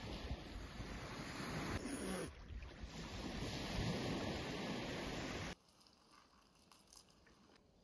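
Wind buffeting the microphone over small waves washing onto a sandy shore, cutting off abruptly about five and a half seconds in to near silence.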